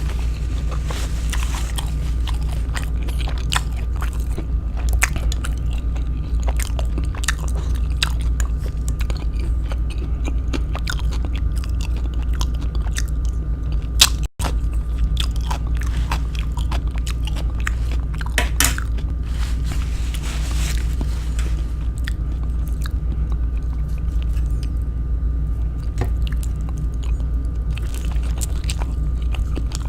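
Close-up chewing and biting of kwek kwek, deep-fried battered quail eggs, with many small crisp crunches over a steady low hum. The sound drops out for an instant about halfway.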